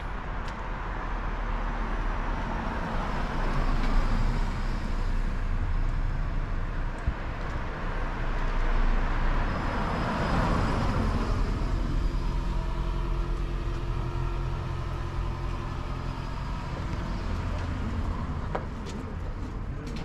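Road traffic: a car drives past close by, loudest about halfway through, and a steady engine hum follows.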